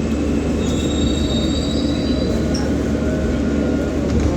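New York City subway train running with a steady rumble. A thin, high wheel squeal rises over it from about a second in and fades after a couple of seconds.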